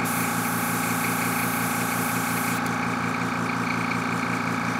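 A steady electric motor hum under a hiss of compressed air from a Gaahleri GHAD-39 airbrush. The high part of the hiss drops away about two and a half seconds in.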